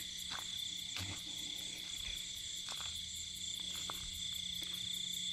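Night chorus of crickets and other insects: a steady high-pitched trill with a fast, even pulse above it. A few faint short clicks sound through it.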